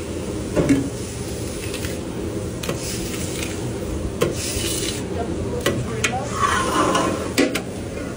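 Metal scraper scraping across a hot steel flat-top griddle, pushing grease into the trough with a sizzle. There are occasional sharp clinks of the blade against the steel.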